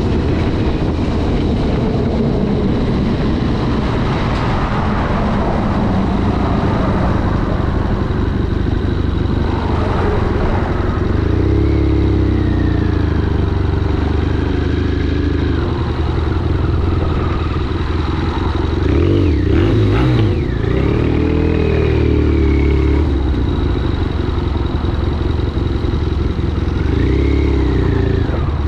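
Motorcycle engine running under way in traffic, its pitch rising and falling with the throttle several times, over a steady rushing noise of wind and road.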